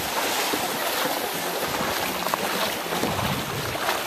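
Steady rush of shallow river water, with splashing from legs wading through it.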